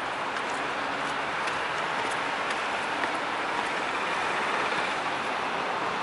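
Steady, even hum of city road traffic.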